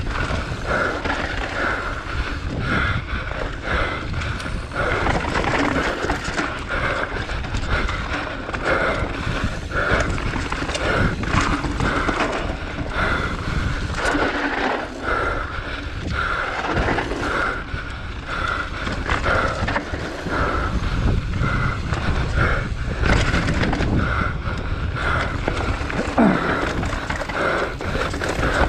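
Downhill mountain bike ridden fast down a dirt trail: tyres on loose dirt and the bike rattling and clattering over bumps and roots, over a steady rumble of wind on the microphone.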